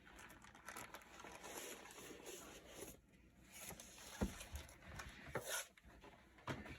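Faint rustling and sliding of cardboard box packaging as a keyboard is drawn out of its box, with a short knock about four seconds in and another brief rustle after it.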